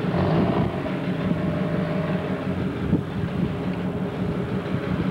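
EMD F7 diesel locomotive's 16-cylinder two-stroke engine running with a steady low drone as the train moves slowly.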